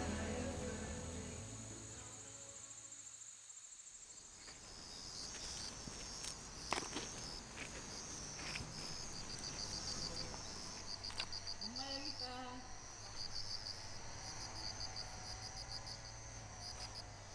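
Crickets chirping in rows of short high pulses over a steady trill, coming in as background music fades out over the first few seconds. A few sharp clicks break in, the loudest about seven seconds in.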